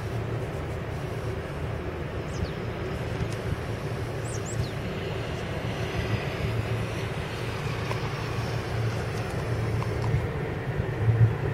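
Fire engines driving past at a distance: a steady low rumble of diesel engines and tyres on a wet, snowy road.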